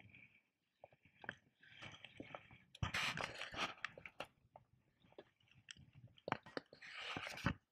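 Handling noise from a camera being moved about: irregular clicks, knocks and rustling against the microphone, with a loud rustle about three seconds in and another near the end.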